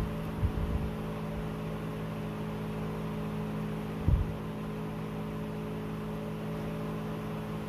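A steady mechanical hum with several fixed pitches, from a running appliance in the room. A few dull low thumps sound near the start and again about four seconds in.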